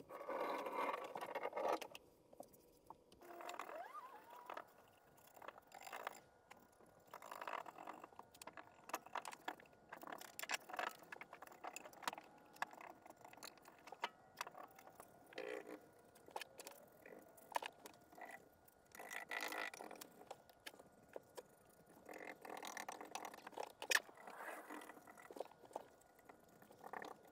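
Irregular scraping, tapping and clicking of hand tools against a wall, in uneven bursts, from scraping off and filling nail holes.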